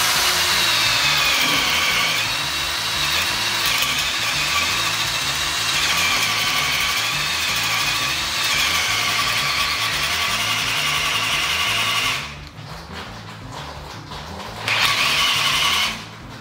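Einhell 18 V brushless cordless drill in first gear boring a 32 mm spade bit into a hard wooden beam. The motor runs with a steady whine that wavers in pitch as the load changes, stops after about twelve seconds, then gives one short burst near the end.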